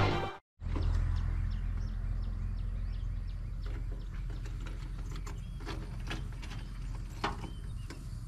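Lakeshore ambience: a steady low rumble with scattered sharp clicks and short high chirps, several a second in places.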